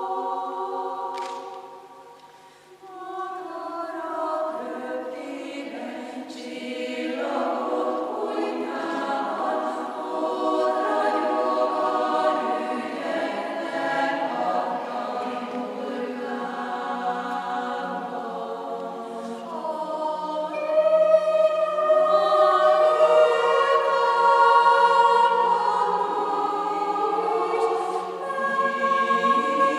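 Women's choir singing unaccompanied in sustained chords. The voices fade almost to nothing about two seconds in, come back in, and swell louder about two-thirds of the way through.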